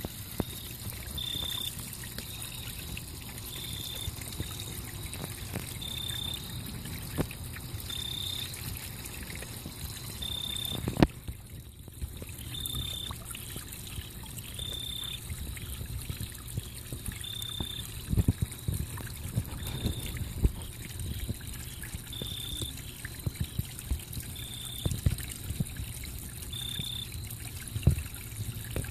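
Water trickling steadily in a garden fish pond, with scattered soft pops and slurps as goldfish and koi take food at the surface, more frequent in the second half. A short high chirp repeats about every two seconds, and a single sharp click stands out near the middle.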